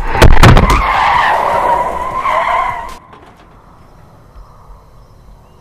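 Car tyres screeching in a hard braking skid, opening with heavy thuds of a collision as the car hits something. The screech cuts off suddenly about three seconds in.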